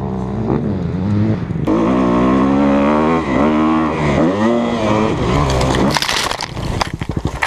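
Dirt bike engine revving, its pitch rising and falling several times as the rider works the throttle. About six seconds in the engine tone drops away into a rapid jumble of knocks and scraping as the rider crashes into the dirt and grass.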